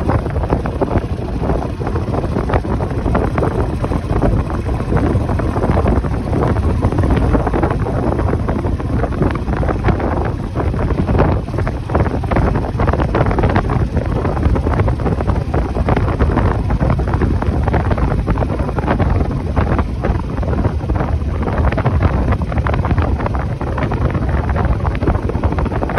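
Wind buffeting the microphone of a motorcycle on the move: a loud, steady rush that flutters unevenly throughout.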